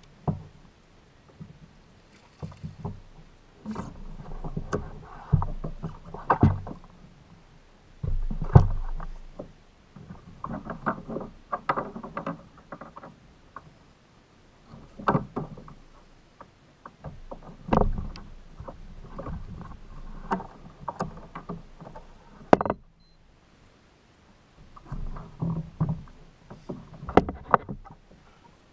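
Sounds aboard a fishing kayak: irregular bouts of sloshing water mixed with sharp knocks and clatters against the hull, with a brief lull about two-thirds of the way through.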